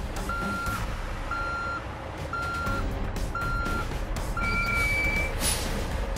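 A truck's reversing alarm beeping, five evenly spaced half-second beeps about once a second, over the low running of the engine. Near the end a higher steady tone sounds briefly, then a short hiss.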